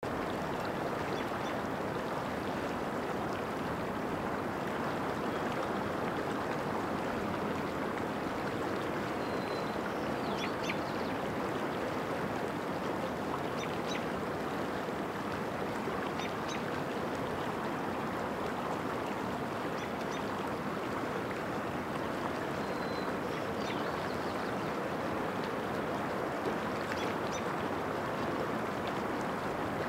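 Shallow stream water running steadily among rocks, with a few faint, short high bird chirps now and then.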